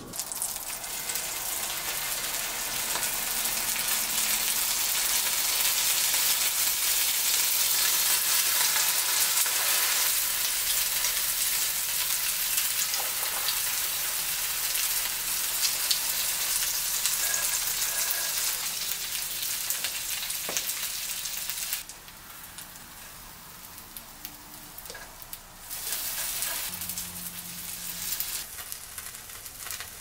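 Slices of French toast sizzling in butter and oil in a nonstick frying pan, a steady hiss. It drops away suddenly about two-thirds of the way through, then comes back more faintly near the end.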